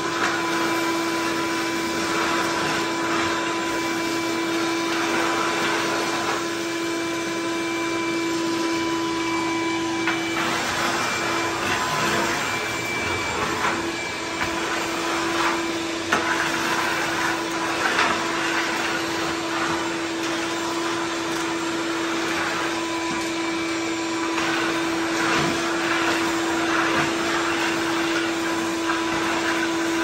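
Ridgid 16-gallon wet/dry shop vacuum running steadily, with a constant motor whine and rushing air through the hose. Occasional clicks and clatters come from wood shavings and debris being sucked up off the concrete floor.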